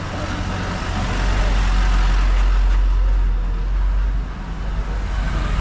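Motor vehicle passing on the street: its engine rumble and road noise swell about a second in and fade again after about four seconds.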